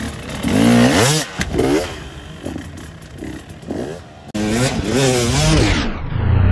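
Dirt bike engine revving in quick bursts, its pitch rising and falling several times as the throttle is blipped. About four seconds in it cuts suddenly to another dirt bike revving hard, its pitch rising.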